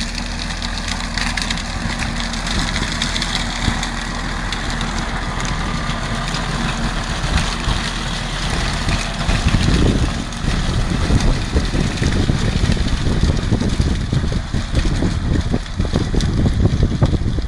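A machine's engine running steadily with a rough, noisy drone; it grows a little louder and busier about ten seconds in.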